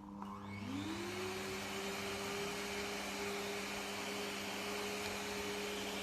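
Pet hair vacuum cleaner switched on with a click, its motor whine rising in pitch over about the first second as it spins up, then running steadily.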